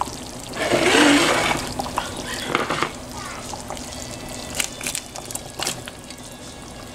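Cubed raw potatoes tipped from a glass dish into a pot of simmering pork stew, plopping and splashing into the thick sauce with a few sharp knocks of glass on the pot's rim. A louder rushing noise comes about a second in.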